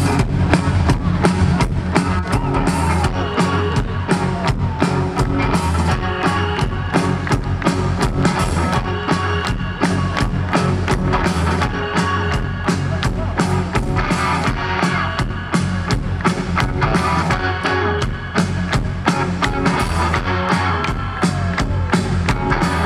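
Live rock band playing through a stage PA, heard from the crowd: a steady drum-kit beat under electric guitars, with no singing.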